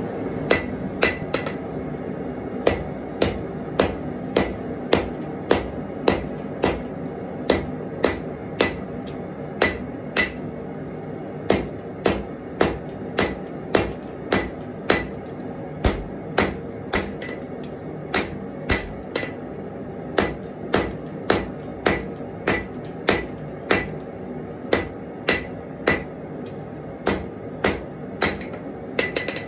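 Hand hammer striking red-hot knife steel on an anvil, forging the point of the blade. The blows come steadily, about two a second, over a steady background hum.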